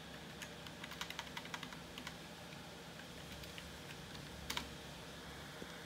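Typing on a computer keyboard, faint: a quick run of key clicks in the first two seconds, then a few scattered keystrokes and one firmer key press about four and a half seconds in.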